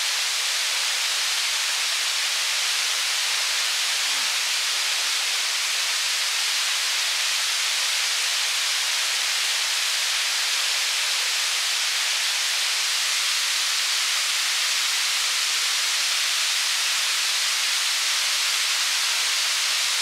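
Steady rushing of a waterfall: a constant, even hiss of falling water.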